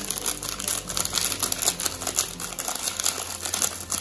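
A paper seasoning sachet crinkling as it is shaken and tapped over a pot, a fast, irregular run of small crackles and taps.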